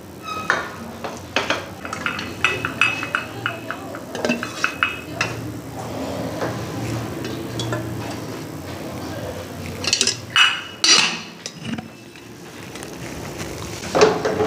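A wooden spoon stirring soft cooked whole lentils in a metal pressure cooker, knocking and scraping against the pot in quick clinks over the first few seconds. A low steady hum follows, with a few louder clatters about two-thirds of the way in.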